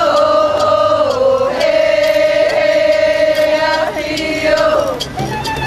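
A crowd of voices chanting in unison, holding one long sung note for several seconds before it falls away near the end.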